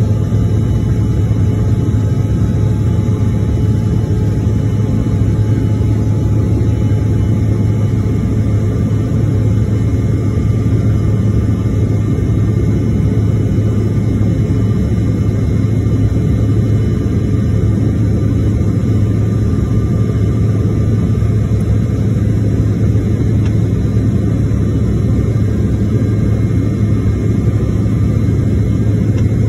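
Jet airliner cabin noise in flight, heard inside the cabin by the window: a steady low drone of engines and airflow, with a few faint steady higher tones, unchanging throughout.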